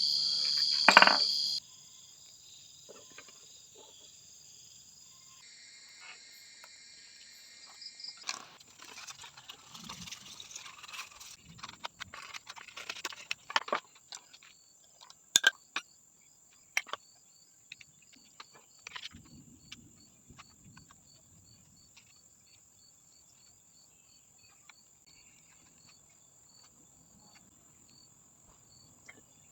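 Insects, likely crickets, chirping steadily with a high, even trill. Scattered light clicks and taps, many in the first half, fit hand tools or materials being handled.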